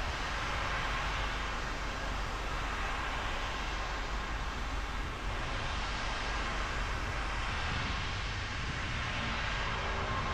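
Car driving on a rain-wet road: steady tyre hiss and road noise with rain, holding an even level throughout.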